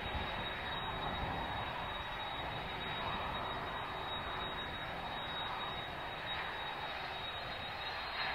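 Kawasaki C-2 transport's two General Electric CF6 turbofans running at taxi power as the aircraft rolls: steady jet engine noise with a thin, high steady whine over it.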